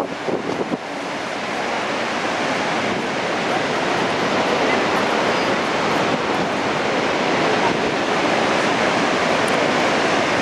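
Niagara Falls rushing: a steady, dense wash of falling water that swells slightly after the first second. Wind buffets the microphone at the start.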